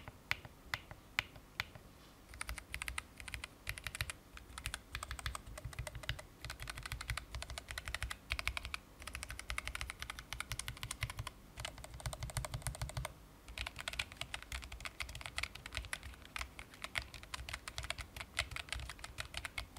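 Keychron K0 Max numpad with low-profile Keychron Milk POM switches and double-shot PBT keycaps being typed on as a sound test. A few single keypresses come first, then fast continuous typing with a brief pause about two-thirds of the way through.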